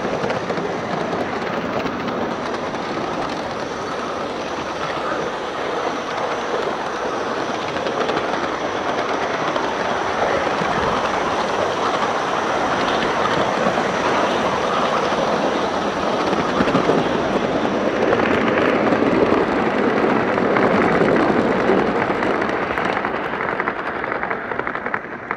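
Live-steam gauge 1 model of a BR Standard Class 5 locomotive hauling coaches along garden railway track: a steady rattle of wheels on rail. It is loudest a little past halfway and fades near the end.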